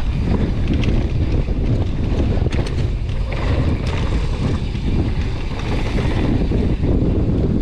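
Gale-force wind buffeting the action camera's microphone, a loud rough rumble that surges and dips without pause. A few sharp clicks sound about two and a half seconds in.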